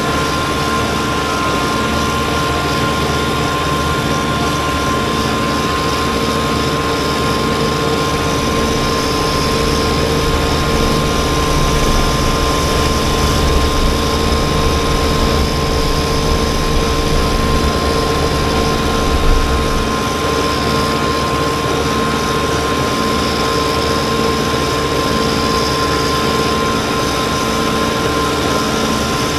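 Kubota BX23S compact tractor's three-cylinder diesel running steadily while driving its front-mounted snowblower, a constant drone with a high steady whine over it.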